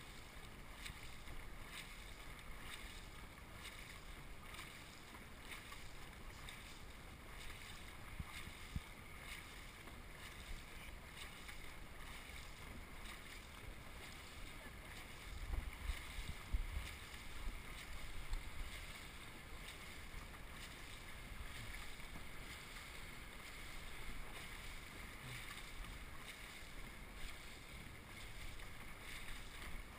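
Faint sound of a paddled dragon boat under way: water rushing and paddles splashing, with wind on the microphone. A louder stretch of low rumbling comes about halfway through.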